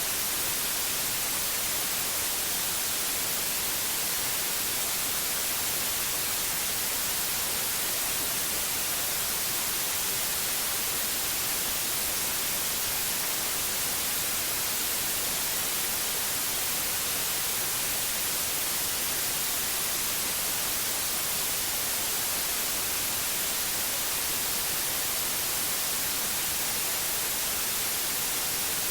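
Steady white noise: an even, unbroken hiss, strongest in the treble, with no change in level and no separate drops, calls or other events.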